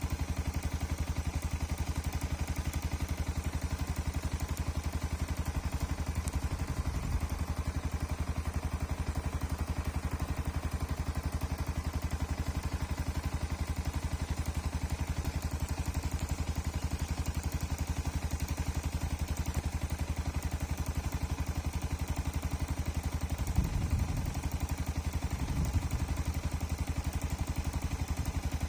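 Small motorcycle engine running steadily at an even speed, with a couple of brief low bumps partway through and near the end.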